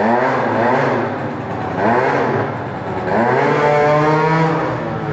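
Sachs Speedjet RS scooter engine revving hard under throttle. Its pitch climbs in three rising surges, the last held high for about a second.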